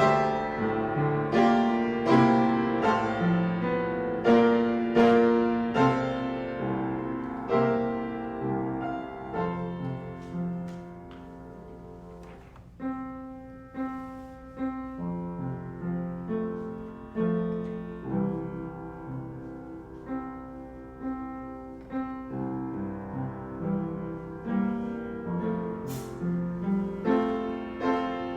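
Piano playing a slow piece of struck, decaying notes, growing softer about halfway through before picking up again.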